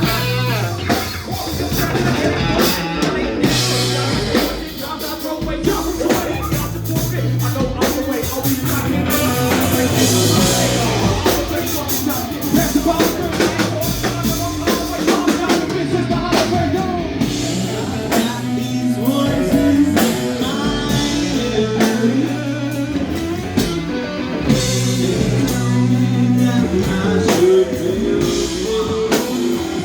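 Rock band playing an original song, with drum kit and guitar over a steady bass line.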